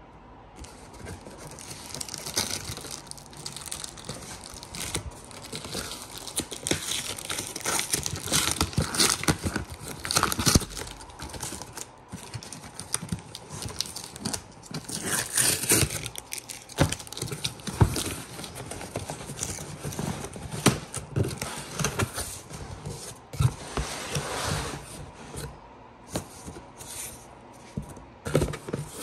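A corrugated cardboard shipping box being torn open and handled: cardboard tearing, scraping and rustling in irregular bursts, with scattered sharp knocks as the flaps are pulled open.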